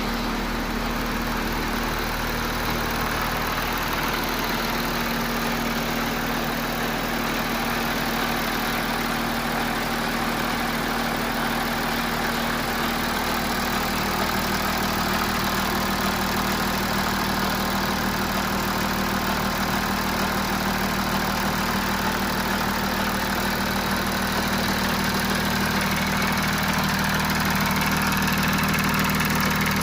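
Audi 3.0 TDI V6 diesel engine (CRTE) idling cold, steady, with the timing chain rattle that was traced to a faulty timing chain tensioner and a worn exhaust camshaft.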